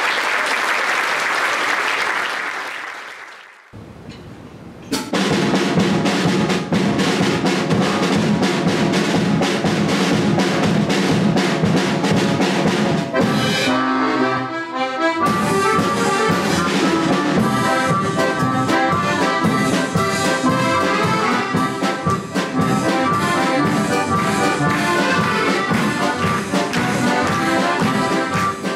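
Applause dying away, then, after a short lull, an accordion orchestra starts playing a piece with a steady beat.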